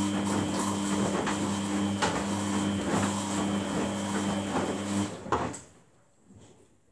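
Samsung WF80F5E0W4W front-loading washing machine tumbling the wash: a steady drum-motor hum with water sloshing and the load knocking in the drum. About five seconds in the drum stops and the sound falls away to a near-quiet pause between tumbles.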